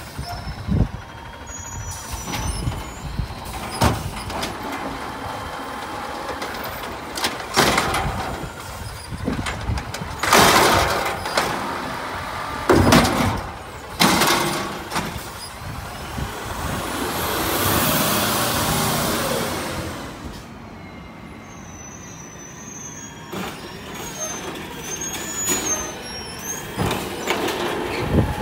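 Autocar automated side-loader garbage truck pulling up to the curb: engine running, with several short, sharp air-brake hisses and a longer hiss a little past the middle, then quieter idling as it stops at the carts.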